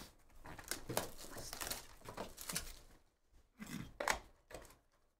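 Hands handling and opening a cardboard Panini Absolute Football hobby box: cardboard rubbing and rustling in a run of irregular short scrapes, loudest about a second in and about four seconds in.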